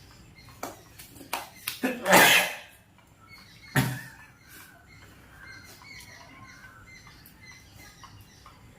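A person sniffing hard through the nose to draw up powder, then a second sharp burst of breath about a second and a half later. A few small clicks come before them.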